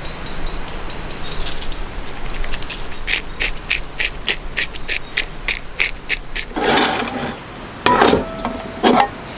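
A rapid, even run of mechanical clicks, about four a second, followed by rustling and a few knocks near the end.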